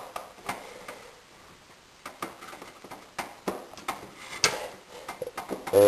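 Scattered small clicks and taps of a screwdriver working a screw in the steel chassis of a Dell XPS 720 desktop PC.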